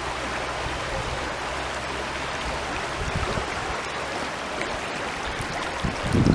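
Spring-fed stream water flowing steadily, an even rush of water. A low rumble comes in near the end.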